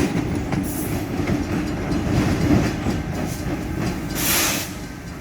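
Passenger train cars rolling past, their wheels rumbling and clicking over the rail joints, with a brief hiss about four seconds in.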